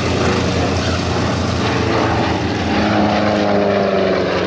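A P-47 Thunderbolt and a Hawker Sea Fury flying past together, their big radial piston engines droning steadily. The engine note is loudest about three seconds in and drops a little in pitch as they go by.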